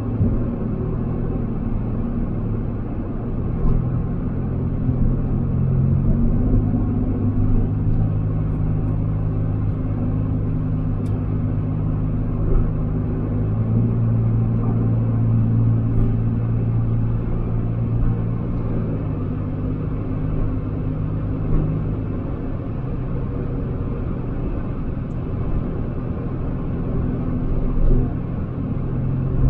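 A Nissan car's engine and road noise heard inside the cabin while it drives, a steady low drone whose engine note shifts in pitch a few times.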